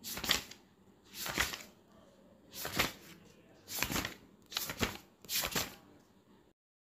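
Paper pages of a notebook being turned, six quick rustles about a second apart, then the sound cuts off suddenly near the end.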